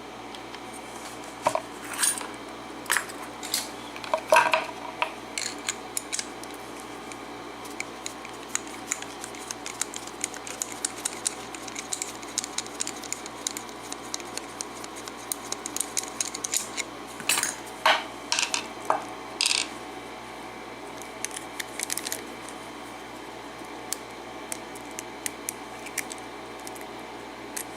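Scattered small metal clicks, taps and clinks of a Master Lock padlock being handled and worked on with tools as it is taken apart, with the loudest clusters about four seconds in and again just past the middle.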